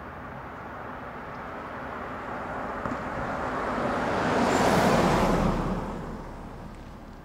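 Small jeep-shaped cars of a kiddie track ride rolling past along their floor guide rail. A rushing noise builds up, is loudest about five seconds in as they pass close by, and then fades.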